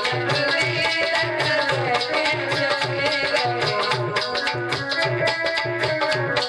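Instrumental passage of a Hindi folk-style song: a melody line over a steady tabla or dholak beat with a shaker-like rattle.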